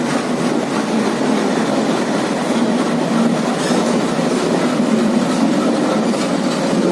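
A train running steadily past through a station, its wheels clattering over the rail joints.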